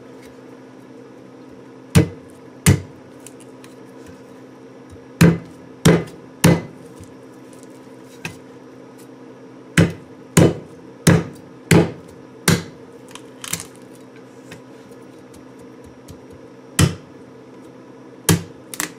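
Kitchen knife blade chopping into the hard inner shell of a young coconut: about a dozen sharp knocks in uneven groups of two or three, cracking the shell open.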